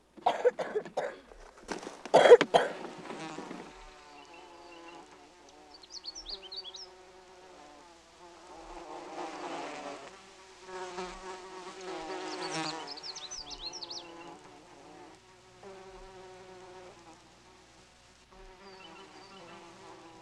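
Flying insects buzzing close by, a wavering drone that comes and goes, with a couple of short bird chirps. A burst of loud rustling and cracks comes in the first few seconds.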